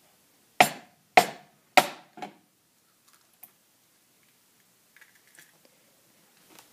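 An egg knocked three times, sharply, against the rim of a bowl to crack its shell, with a lighter fourth tap just after; then only faint small ticks as the shell is pulled apart.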